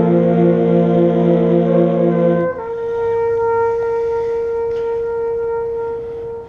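A marching band's winds hold a sustained chord. About two and a half seconds in, most of the band drops out, leaving one held note that sustains for about four seconds and cuts off near the end.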